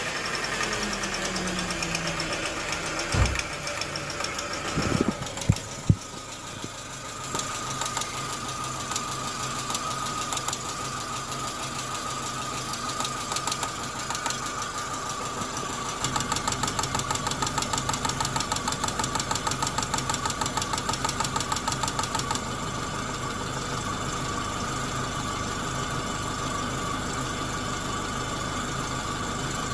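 Chevrolet Corsa 1.4 engine running at idle with a rapid, rhythmic ticking knock from the engine, which the owner cannot identify, plus a steady high whine. The ticking grows louder for about six seconds past the middle, and a few loud thumps come in the first several seconds.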